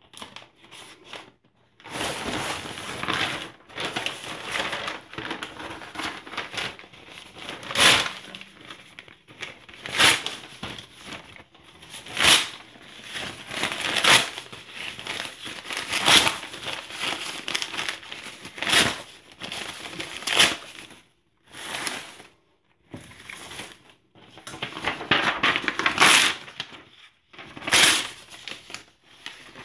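Newsprint and sheets of office paper being crumpled and torn by hand close to the microphone. It starts nearly quiet, then becomes a continuous rustle broken by sharper, louder rips about every two seconds.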